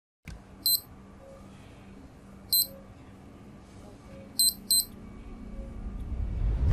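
Four short, high electronic beeps, the last two close together, over a steady low hum. A low rumble builds near the end.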